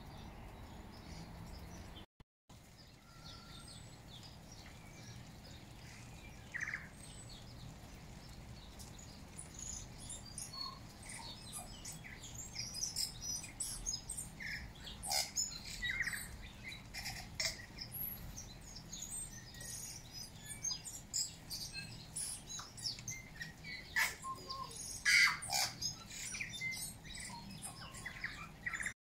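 Tui calling: scattered short, high chirps and clicks, growing busier from about ten seconds in, with a dense run near the end.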